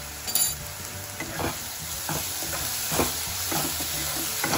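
Onion, ginger-garlic and tomato masala sizzling in mustard oil in a non-stick kadai while a spatula scrapes and stirs it in repeated short strokes. A sharp clink comes about a third of a second in.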